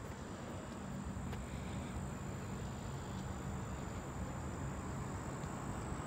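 Insects trilling steadily at a high pitch over a constant low rumble.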